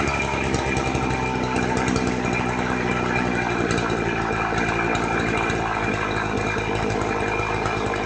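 Small engine of an engine-driven pump running steadily at idle, just brought back to life after a weak-spark fix and a new carburettor diaphragm, with the mixture and idle still being adjusted.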